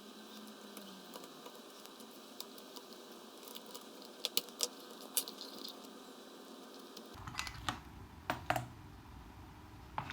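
Faint, irregular small clicks and taps of small parts and tools being handled while the main plate is taken off a 1/24-scale RC truck, with a few sharper clicks around the middle.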